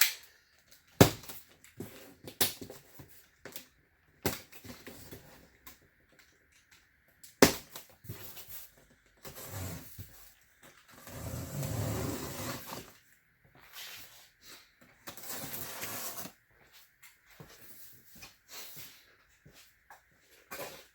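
A cardboard shipping box of table saw parts being opened by hand. There are several sharp snaps and knocks in the first half, then stretches of rustling and scraping of cardboard and packing material.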